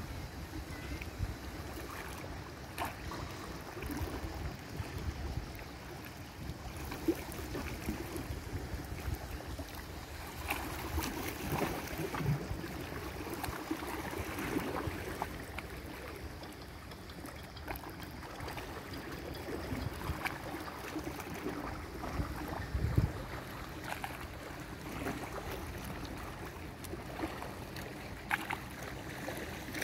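Sea water splashing and lapping, with irregular small splashes, and wind now and then buffeting the microphone.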